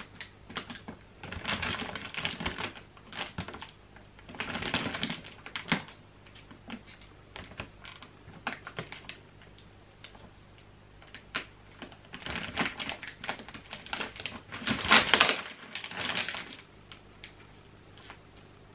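Clear plastic wrapping around a rolled-up mattress topper crinkling and crackling in bursts as a small handheld safety cutter slits it open, the loudest burst about fifteen seconds in.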